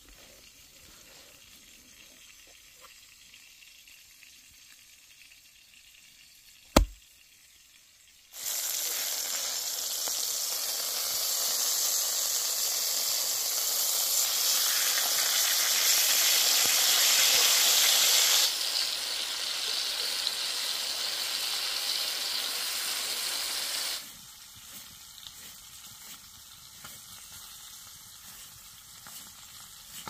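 Chicken breasts frying in oil in a cast-iron skillet: a loud, steady sizzle that starts about eight seconds in and cuts off at about twenty-four seconds. Before it, a quiet stretch with one sharp knock about seven seconds in; after it, faint small ticks.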